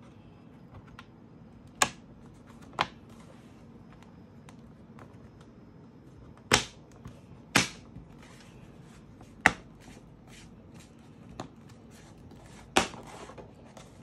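Plastic bottom cover of a laptop being pressed back onto the chassis, its snap clips clicking into place: about six sharp clicks at uneven intervals, with a few fainter ticks between them.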